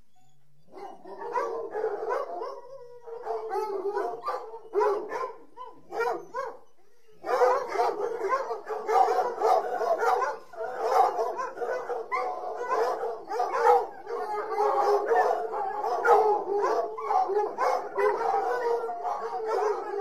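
Dogs barking in quick, overlapping barks, with a short pause about seven seconds in before a long stretch of dense barking.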